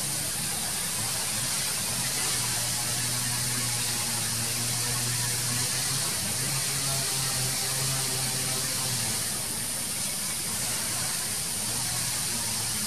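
Steady outdoor hiss with a low, wavering hum underneath.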